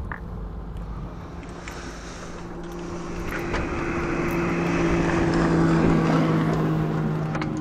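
Boat's outboard motor running under way, a steady hum with a rushing noise over it, growing louder from about three seconds in.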